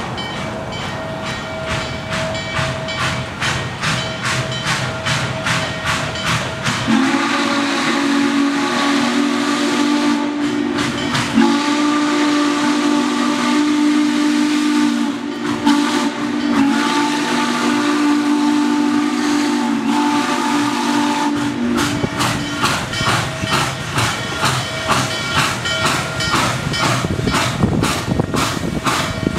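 Norfolk & Western 611, a Class J 4-8-4 steam locomotive, approaching with a steady beat of exhaust chuffs and hiss of steam. About seven seconds in it sounds its steam whistle in one long chord that lasts about fourteen seconds, with a brief break partway through.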